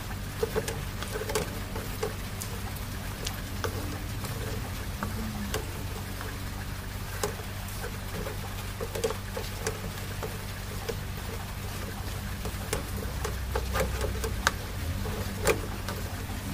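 Wooden spatula scraping and knocking against an aluminium pan in irregular clicks and scrapes while stirring a thick, heavy grated-cassava mixture that is nearly cooked. A steady low hum runs underneath.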